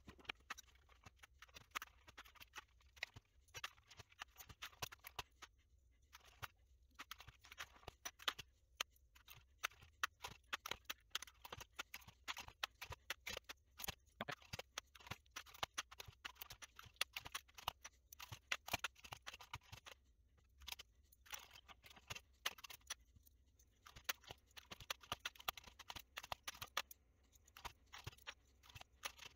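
Commodore 64 plastic keycaps being pulled off the keyboard and dropped into a plastic tub: a long run of small, irregular clicks and rattles with short pauses.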